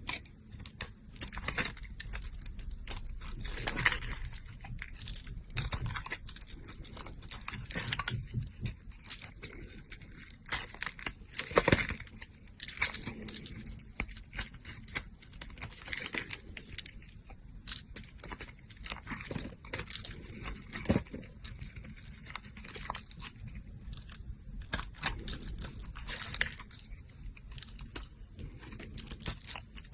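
Dry soap being cut and carved: a dense, continuous run of crunchy crackles, scrapes and sharp snaps.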